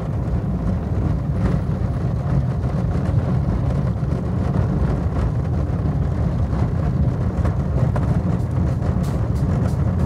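Car driving over an old road paved with rough, uneven stones: a dense, steady low rumble from the tyres and body, with a few short knocks near the end as the car jolts.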